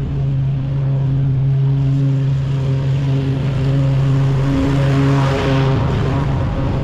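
Commercial walk-behind lawn mower's engine running steadily under load while cutting overgrown grass. It grows louder as the mower comes close, about five seconds in.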